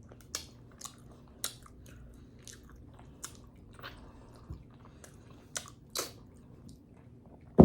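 Close-miked eating of smothered beef neck bones: wet lip smacks, sucking and chewing as meat is pulled off the bone, in short separate clicks about one or two a second.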